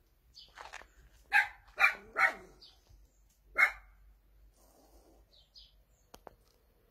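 A dog barking, four sharp barks in quick succession between about one and four seconds in, with softer yips just before them.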